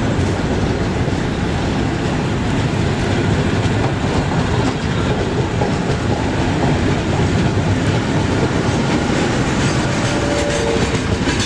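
A slow heritage train of old passenger coaches, a diesel locomotive and a steam locomotive tender rolls past close by, its wheels rumbling and clacking steadily over the rail joints. A faint wheel squeal comes in near the end.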